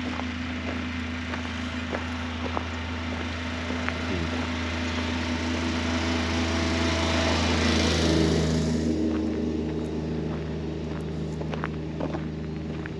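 Small engine of a passing machine, such as a golf-course mower, running steadily. It grows louder to a peak about eight seconds in, then drops in pitch and fades as it moves away. Footsteps click along underneath.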